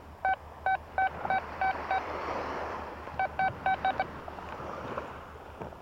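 Quest Q40 metal detector giving short repeated beeps, all at the same pitch, as the coil is swept back and forth over a buried target. There are two quick clusters of beeps with a soft hiss in the pause between them.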